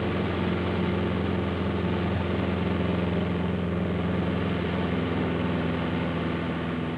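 Single-engined light aircraft's piston engine and propeller droning steadily from inside the cabin, with the throttle opened to hold a steep turn.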